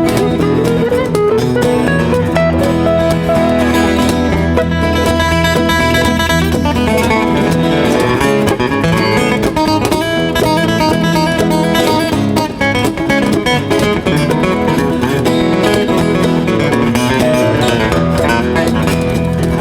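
Acoustic bluegrass instrumental break: a lead acoustic guitar picking the melody over strummed rhythm guitars, with a cajon keeping time.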